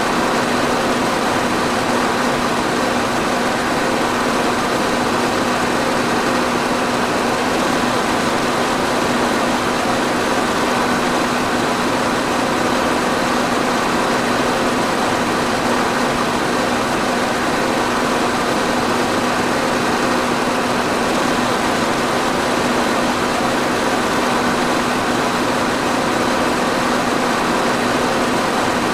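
Electric fan running steadily: a constant whoosh of moving air with a steady motor hum underneath.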